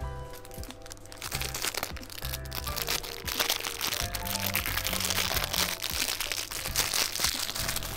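Clear plastic wrapping crinkling and crackling as a small item is unwrapped by hand, starting about a second and a half in and growing denser toward the end, over light background music.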